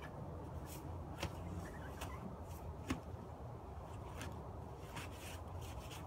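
Irregular metallic clicks and ticks of a cross-shaped lug wrench working the lug nuts on a car wheel, the sharpest one about three seconds in, over a steady low outdoor rumble.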